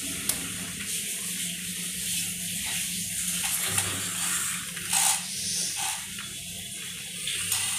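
A plastic toy car knocked and scraped on a tiled floor, a few short clicks and clatters, the loudest about five seconds in, over a steady background hiss and low hum.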